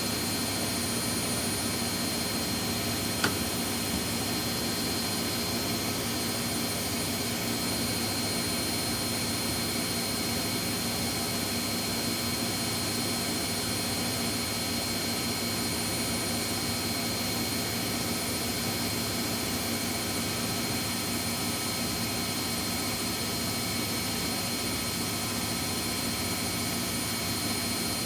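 Washing machines in their spin cycle, drums spinning at high speed with a steady whirring whine, and a single short click about three seconds in.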